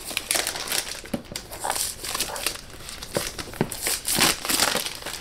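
Cellophane wrap on a product box crinkling as it is cut and pulled off, in uneven crackles and rustles.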